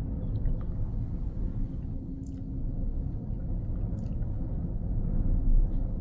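Low, steady rumble inside a gondola cable car cabin as it travels down the line, with a couple of faint clicks about two and four seconds in.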